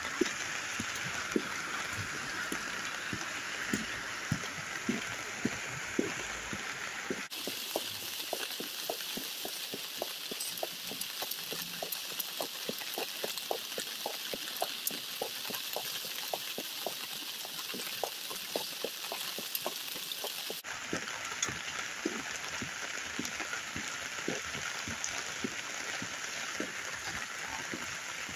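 Steady rain from Hurricane Hilary's remnants, with many individual drops ticking close by, over the rush of floodwater running through the arroyo.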